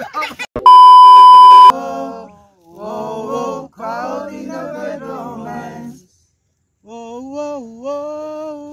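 A loud edited-in bleep, one steady tone about a second long. Then men's voices singing without instruments in short phrases, ending on one long held note.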